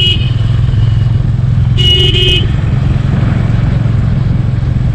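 Single-cylinder 350 cc motorcycle engine running steadily while riding, heard from the bike itself. A short horn beep sounds about two seconds in, and the end of a longer beep cuts off right at the start.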